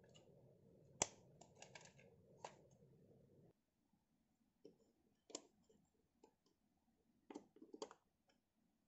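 Quiet plastic clicks and snaps from handling a toy RC crawler crane and its remote. There is a sharp snap about a second in while the transmitter's battery cover is handled, and a few more clicks after it. Near the end comes a quick cluster of clicks as the plastic battery compartment lid on the crane's body is opened.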